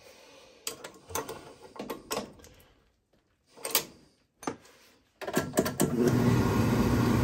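A few scattered clicks and knocks, then about five seconds in an oil furnace burner comes on suddenly and runs with a steady low hum, firing right off and running smoothly.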